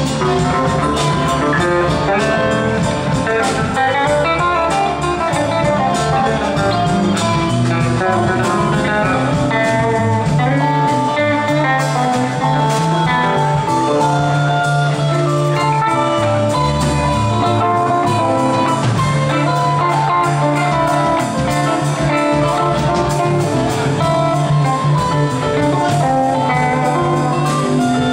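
Live band playing an instrumental passage: electric guitars over bass guitar and drums.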